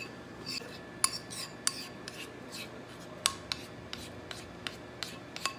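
Metal spoon clinking and scraping against a ceramic bowl while stirring orange food colouring into melted white chocolate: irregular clinks, a couple a second, some with a short ring.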